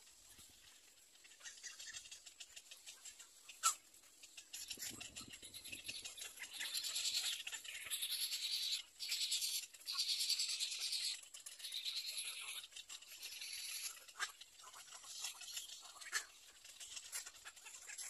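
Little egret nestlings giving rapid, buzzy chattering calls in a run of bursts about a second long through the middle, with a few sharp clicks around them.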